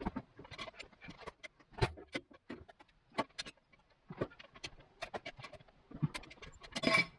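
Irregular knocks and clunks of a heavy log being shifted and turned on a sawmill bed, with a louder cluster of knocks near the end.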